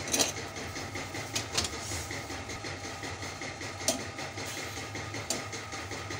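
Thickened sugar syrup boiling in a steel saucepan, with a steady bubbling rumble. A metal spoon stirring it knocks sharply against the pan about four times.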